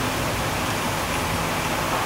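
Heavy thunderstorm downpour pouring steadily, a dense, even hiss of rain.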